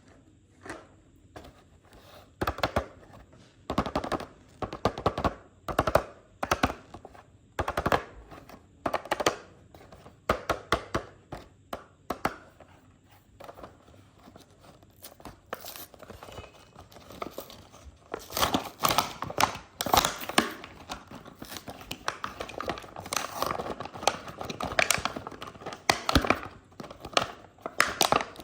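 Toy car packaging being opened by hand: plastic and cardboard crinkling, crackling and tearing in quick bursts of sharp clicks. The bursts are spaced apart at first, ease off about halfway, then come thick and busy near the end.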